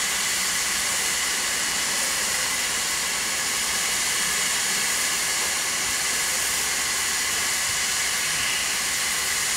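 Steady hiss of steam from a standing LMS Class 5MT 'Black 5' 4-6-0 steam locomotive. The steam is blowing off above the boiler at the safety valves and escaping around the front of the cylinders.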